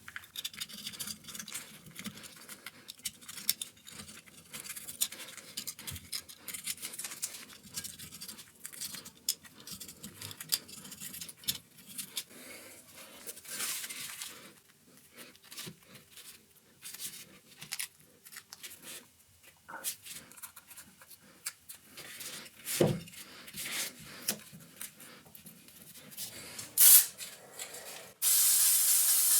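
Small, irregular rubbing, scraping and clicking noises of hand work on a small metal tool. Near the end there is a sharp click, and then a spray can starts a loud, steady hiss.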